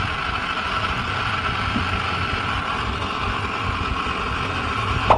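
Samsung CRT television's speaker putting out a steady, loud hiss of static. It ends in a sharp click about five seconds in.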